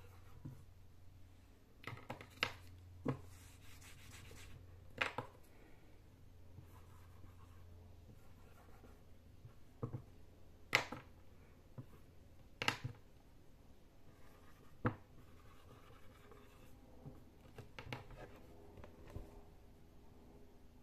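Felt-tip marker writing on a small dry-erase whiteboard: faint scratchy strokes broken by about ten sharp clicks and taps of the marker against the board, with a low steady hum through the first part.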